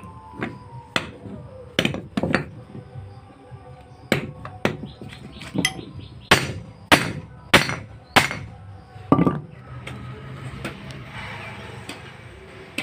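Hammer striking the steel universal joint of a truck's propeller shaft, about a dozen sharp blows at uneven intervals, loudest in the middle, stopping about nine seconds in.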